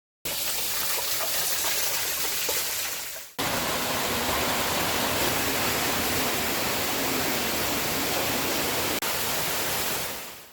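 Waterfall pouring: a steady, dense rush of falling water. It fades out about three seconds in and cuts straight back in, then fades away at the end.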